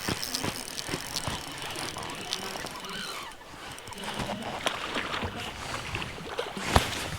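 Scattered light knocks and clicks of handling on a fishing boat over a faint hiss, with one sharper knock near the end.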